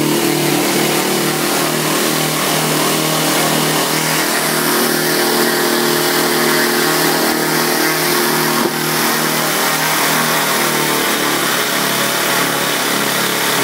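Small blower engine running steadily, its speed wavering slightly, with a brief click about nine seconds in and a small drop in speed a couple of seconds later.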